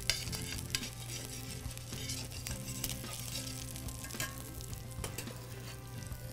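Salmon fillet sizzling steadily in hot olive oil in a stainless steel sauté pan, while a slotted metal fish spatula moves it around, giving a few light scrapes and taps against the pan.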